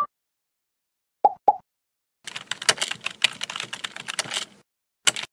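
Computer keyboard typing sound effect: a quick run of key clicks lasting about two seconds. Two short pops come before it, and one sharp click comes near the end.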